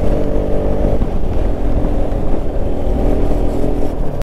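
Motorcycle engine, a Bajaj Pulsar RS200's single-cylinder, running at a steady cruise with an even pitch, over heavy wind rumble on the microphone.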